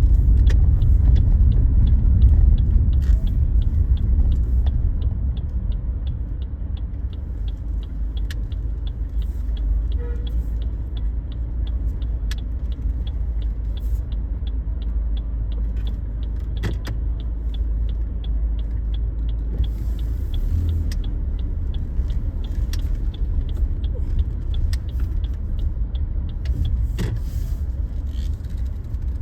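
Car driving, heard as a steady low road and engine rumble, loudest in the first few seconds. A light, regular ticking at about two to three a second runs through much of it and fades out about two-thirds of the way in.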